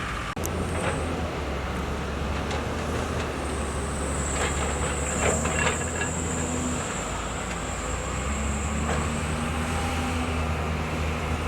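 Hyundai excavator's diesel engine running steadily under load, with a thin high-pitched whine through the middle and a few light clanks.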